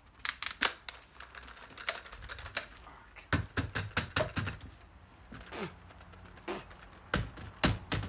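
Irregular sharp plastic clicks and knocks from a Dyson cordless vacuum's dust bin being opened and emptied into a plastic trash can, the handheld unit knocking against the can's rim. The motor is not running.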